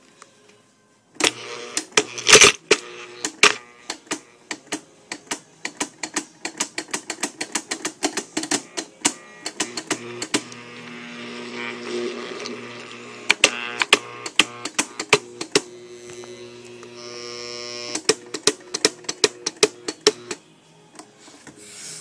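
Homemade scrap-built blender starting about a second in, its motor humming steadily while the blade clatters rapidly and irregularly against shredded cloth scraps. Near the end it drops off and goes quiet, the blade jammed by cloth wrapped around it.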